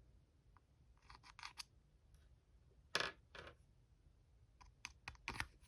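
Small plastic action-figure accessories clicking and tapping as they are handled and tried together: a quick run of four light clicks about a second in, a louder tap about three seconds in, then a few more clicks near the end.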